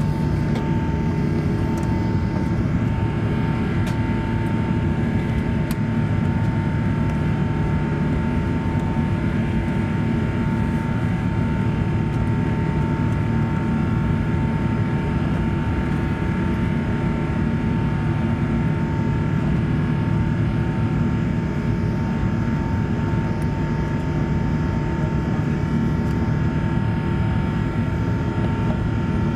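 Airbus A380 cabin noise in the climb, heard from a window seat over the wing: the Engine Alliance GP7200 turbofans and the airflow give a steady, even drone with a steady whine on top.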